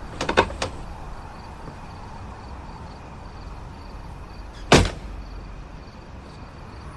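A door shuts with a single heavy thud about two-thirds of the way in, after a few light clicks near the start, over a steady low hum.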